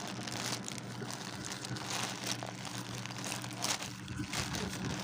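Packaging of a perfume box being handled, rustling and crinkling in short uneven bursts.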